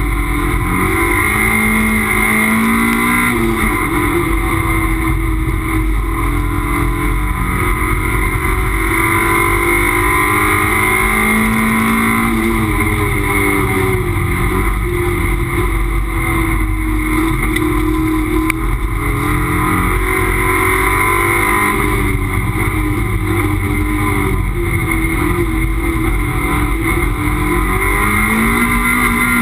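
Toyota MR2 race car's mid-mounted engine heard from inside the cockpit, rising and falling in pitch as the driver accelerates and lifts through the corners, over steady road noise.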